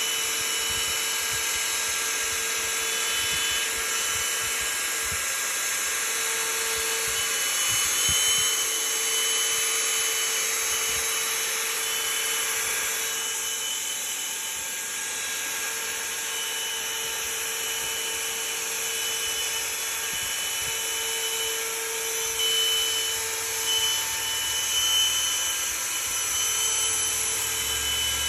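The router spindle on a Legacy Maverick CNC machine running at high speed while its bit cuts a circle through a wooden board: a steady high-pitched whine mixed with cutting noise.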